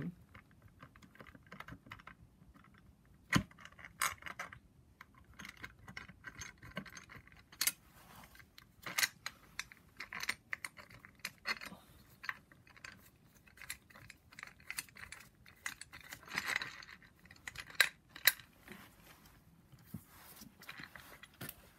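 Loose bolts and the upper camshaft bearing section of a BMW N54 cylinder head being handled and worked upward by hand. The sound is scattered small metal clicks and clinks, with sharper knocks about three seconds in and again late on.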